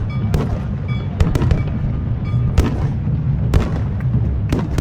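Fireworks display: about ten sharp shell bursts going off at uneven intervals over a continuous deep rumble of further explosions.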